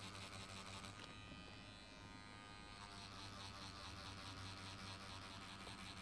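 Tattoo machine running with a faint, steady electric buzz while shading with light grey wash; its tone changes briefly from about one to three seconds in.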